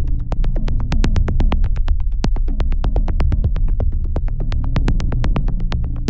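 Electronic background music: a deep synthesizer bass under a fast, steady run of sharp clicking beats.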